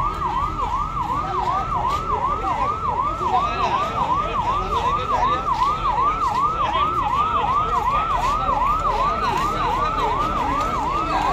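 Electronic emergency siren yelping, its pitch sweeping up and down about three times a second without a break.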